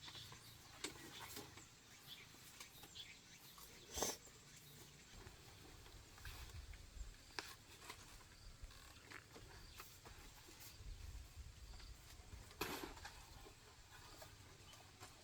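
Near silence with faint scattered clicks and small knocks, a sharper knock about four seconds in and another near the end.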